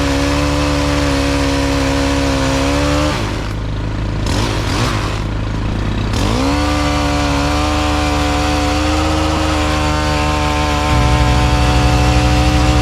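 An engine of the tree-removal equipment running fast and steady, then dragging down and wavering under load for about three seconds before picking back up to speed. A deeper engine rumble underneath grows louder near the end.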